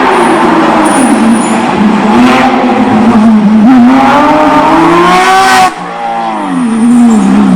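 Racing car engine revving hard, its pitch climbing and falling as it works through the revs. The sound drops sharply about three-quarters of the way through, then climbs again.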